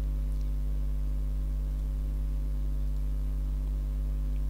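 Steady electrical hum with a low buzz and faint hiss, unchanging throughout: mains hum picked up in the narrator's microphone chain.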